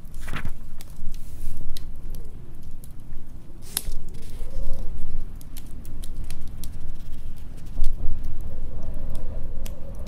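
Fireplace log fire crackling with scattered sharp pops, over the low rumble of storm wind with a faint howl that rises and falls in pitch.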